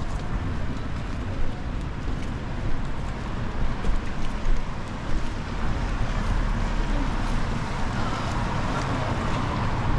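City street noise in the rain: traffic passing on wet roads, with wind rumbling on the microphone.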